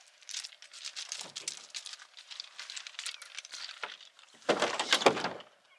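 Irregular crinkling and rustling handling noise, with a louder crunching burst about three-quarters of the way through.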